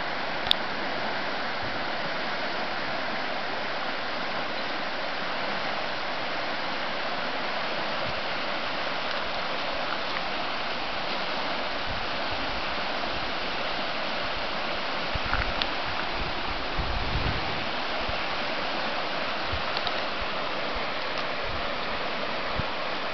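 Cossatot River in flood, high after heavy rain, with a steady rush of swift water. There is a sharp click about half a second in.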